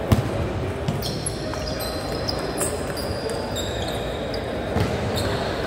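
Table tennis ball being hit back and forth in a doubles rally, sharp irregular clicks of paddle and table, the loudest just after the start. Short high squeaks come in between, about a second to four seconds in.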